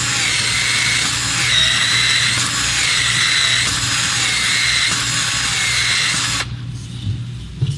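Cordless ProPEX expansion tool running as it expands the end of a PEX-a pipe and its expansion ring. The motor whirs steadily, its pitch dipping and recovering about once a second in repeated cycles, and it stops about six and a half seconds in.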